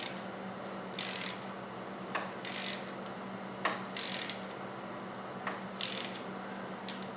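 Ratchet wrench clicking in about five short bursts about a second apart, with a few single clicks between, as the primary oil drain plug is snugged down against its seal, over a faint steady hum.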